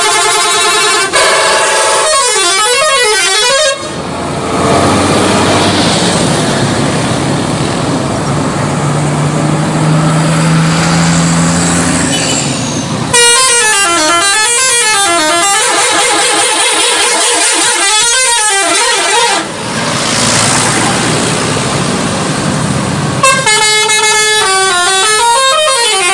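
Indonesian 'telolet' bus horn, a set of musical air horns, playing its warbling up-and-down tune in three loud bursts: near the start, for several seconds around the middle, and again near the end. A noisy rush fills the gaps between the bursts.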